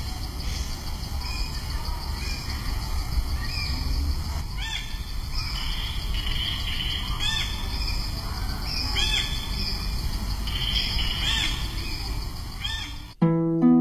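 Forest birds calling repeatedly, short rising-and-falling calls every second or two, over a steady outdoor hiss. Near the end it cuts abruptly to plucked-string music.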